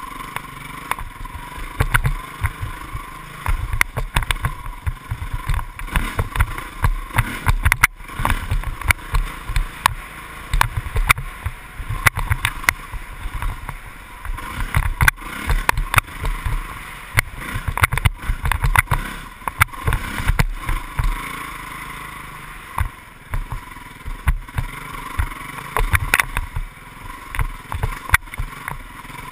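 Off-road motorcycle riding a rough, sandy dirt trail: the engine runs steadily underneath frequent knocks, jolts and rattles from the bumps.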